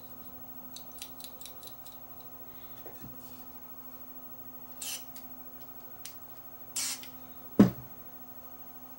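Two short hissing squirts of aerosol control cleaner sprayed into the monitor's potentiometers, about five and seven seconds in, followed by a sharp knock. Light clicks come earlier, and a low hum runs underneath.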